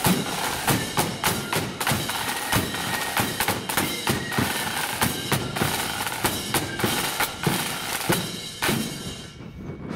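Marching flute band playing, with rapid snare drum strokes and bass drum beats under shrill flutes. The sound falls away about nine seconds in.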